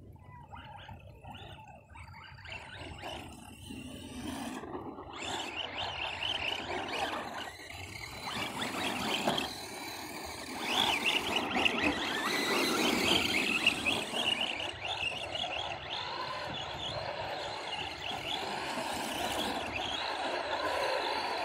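Two RC monster trucks running over snow, their motors whining and rising and falling in pitch with the throttle. The sound grows louder from a few seconds in and is loudest about halfway through.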